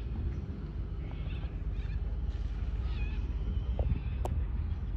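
Wind buffeting the microphone in a steady low rumble, with a few short bird calls above it and a single sharp click about four seconds in.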